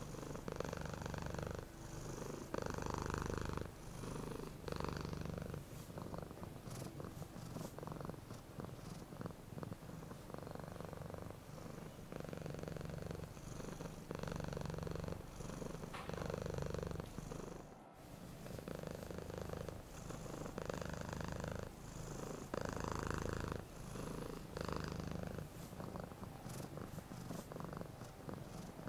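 Domestic cat purring steadily, the purr swelling and fading in a regular rhythm with its in- and out-breaths. It cuts out for a moment about two-thirds of the way through.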